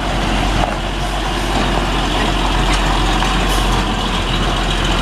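Heavy diesel tronton truck engine running steadily under load as the truck creeps forward close by.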